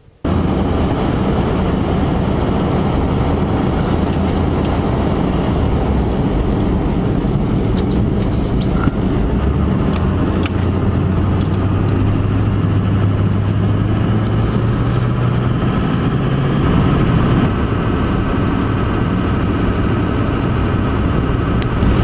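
Vehicle driving on a highway, heard from inside the cabin: steady road and tyre noise under a low engine drone that rises slightly in pitch partway through and then settles back.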